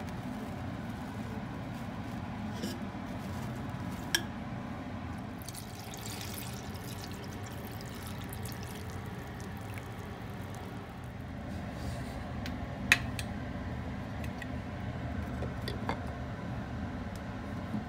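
Water poured from a plastic bottle into a glass pitcher to cold-brew a jasmine tea bag, splashing for a few seconds about six seconds in, with two sharp clinks of glass. A steady low hum runs underneath.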